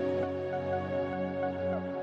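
Background electronic music with sustained synth chords; the chord changes near the end.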